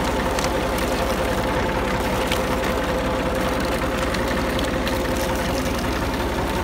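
Engine-driven sugarcane crushing machine running steadily, with a fast, even low throb and a constant hum as its gear-driven rollers turn.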